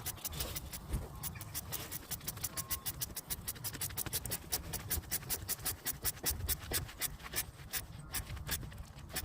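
Hand ratchet clicking rapidly and evenly, about seven clicks a second, as a bolt on the turbo's intercooler hose is tightened.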